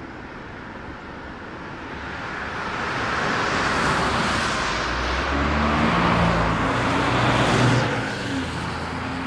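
Cars passing close by on a road: tyre and road noise swells and fades twice, and from about halfway a car engine can be heard running with a steady low drone as a car pulls away.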